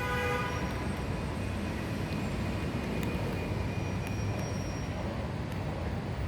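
Steady low rumble and hiss of outdoor background noise, like distant vehicle traffic.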